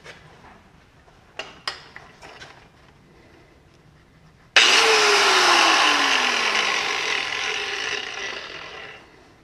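Handheld DeWalt angle grinder, spinning with no load, starts abruptly about halfway through after a few light handling clicks. Its whine then falls in pitch and fades out over about four seconds as it winds down.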